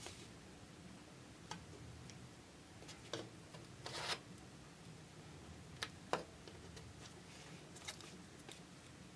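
Light taps, clicks and a brief scrape of paper parts, tweezers and a small wooden block handled on a cutting mat, a few scattered sounds every second or so over a steady low hum.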